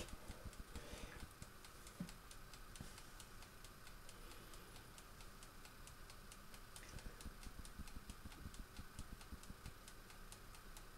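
Faint, evenly spaced mechanical ticking in an otherwise near-silent room.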